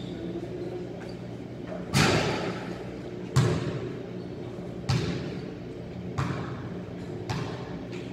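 A basketball bouncing on a gym floor: five loud, echoing thuds, each about a second and a half apart, over a steady low hum in a large hall.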